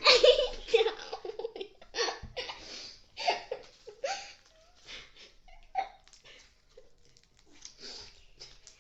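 Girls giggling and laughing in short breathy bursts, loudest in the first few seconds and then trailing off into quieter giggles.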